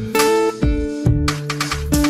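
Background music of plucked guitar notes and chords, changing every half second or so.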